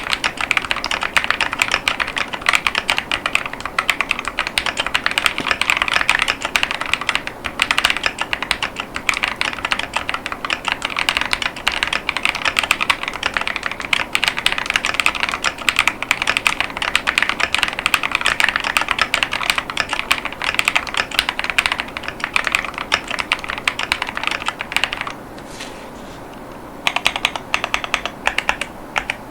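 Fast continuous typing on a mechanical keyboard with KiiBoom Crystal Linear 55gf linear switches and clear polycarbonate ASA-profile keycaps: a dense run of quick keystroke clicks. The typing pauses for about two seconds near the end, then starts again.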